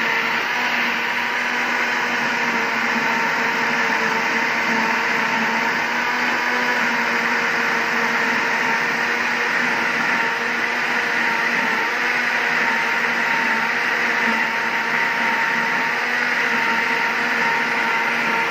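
Countertop electric blender running steadily at one speed, its motor humming as it blends milk, melon and peaches into a milkshake.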